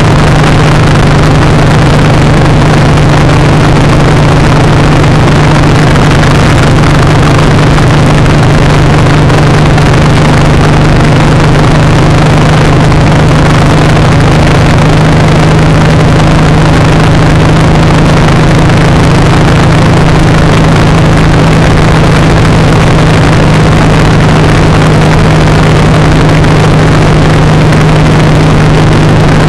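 Suzuki M109R (VZR 1800R) 1783 cc V-twin engine running at a steady motorway cruise, a constant low drone with no change in revs, under a heavy rush of wind and road noise.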